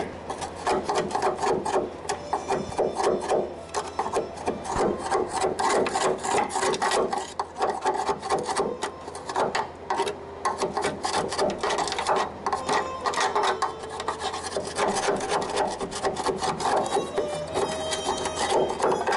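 A flat metal scraper scraping flaking paint and rust off the steel cowl of a 1970 Pontiac LeMans wagon, in quick, irregular strokes.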